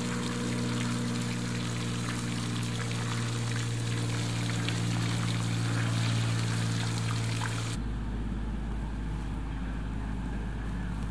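Garden pool fountain water trickling and splashing, with a steady low hum under it. About eight seconds in, the water sound cuts off suddenly and a steady low rumble takes its place.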